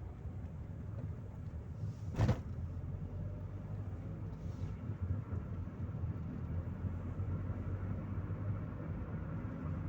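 Chevrolet Corsa Maxx being driven, a steady low engine and road rumble, with one sharp thump about two seconds in.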